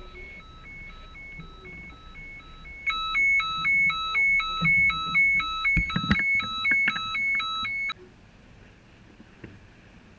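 Electronic alarm on board the yacht, first beeping evenly, then about three seconds in switching to a louder warble that alternates rapidly between two pitches. It cuts off suddenly near the end, with a few handling knocks just before it stops.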